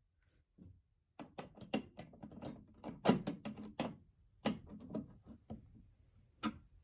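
A run of small sharp clicks and knocks, then one more click near the end: a Gamewell Sentry fire alarm pull station being handled and reset.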